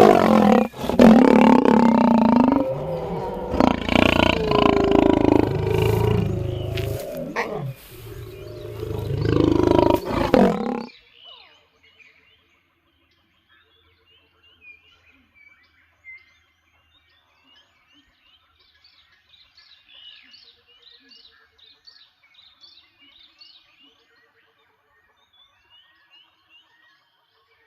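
A lion roaring: loud, deep, drawn-out calls with short breaks, which stop abruptly about eleven seconds in. Faint bird chirps follow for the rest of the time.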